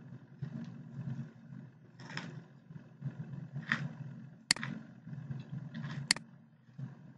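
Two sharp mouse clicks about a second and a half apart, over an uneven low background rumble.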